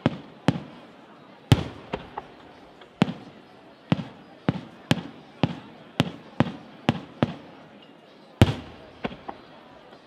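Aerial firework shells bursting overhead in a rapid, uneven series of sharp bangs, about two a second, each dying away quickly. Two of them are louder than the rest, one about a second and a half in and one near the end.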